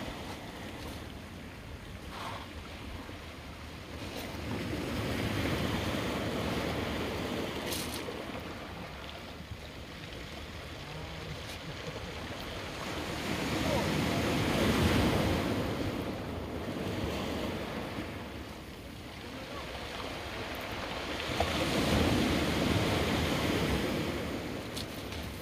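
Ocean surf washing against a rocky jetty, three waves surging in and falling back about eight seconds apart, with wind buffeting the microphone.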